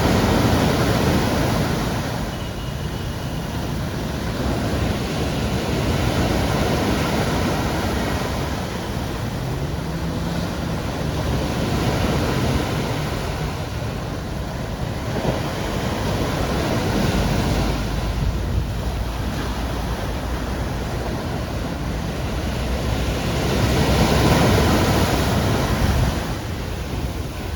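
Sea waves breaking on the shore, surging and easing about every six seconds, with a low rumble of wind on the microphone.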